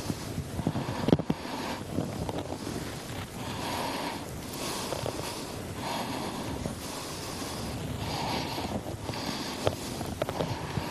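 Hands rubbing a wet coffee scrub over bare skin: a smeary rubbing noise that swells and fades in slow strokes, about one every two seconds, with a few sharp clicks, the loudest about a second in.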